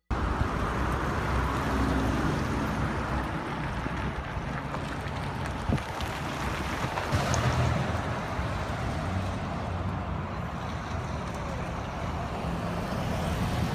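Street ambience: road traffic passing, with wind rumbling on the microphone.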